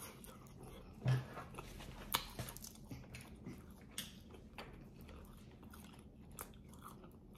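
Close-miked biting and chewing of spicy chicken, with scattered sharp mouth clicks. A brief low thump about a second in is the loudest sound.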